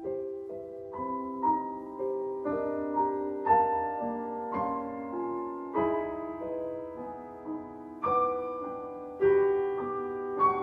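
Slow solo piano music: single notes and chords struck one after another, each ringing and dying away.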